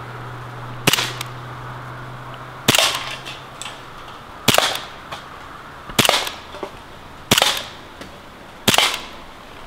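Six shots from a CO2-powered full-metal 1911 blowback BB pistol, each a sharp crack with the slide cycling, about one every one and a half seconds. Fainter clicks and clatter follow several of the shots as BBs strike and knock over aluminium drink cans.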